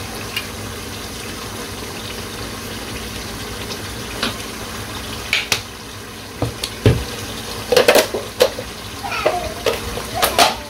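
A pot of beef curry simmering with a steady low hiss. Tomato ketchup is squeezed from a bottle into the pot, and containers and utensils give scattered short clicks and knocks, busier in the second half.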